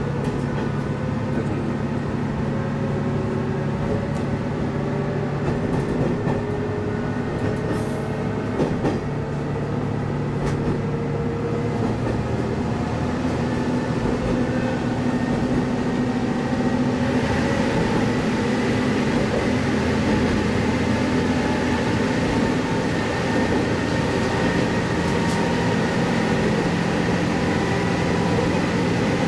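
Sanriku Railway diesel railcar in motion, heard from inside at its rear: the engine's pitch climbs slowly as the train picks up speed, over wheel and track noise. About seventeen seconds in, the running noise grows louder and hissier.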